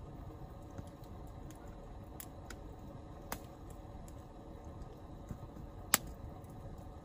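Wood campfire crackling: a few sharp pops over a low steady background, the loudest pop about six seconds in.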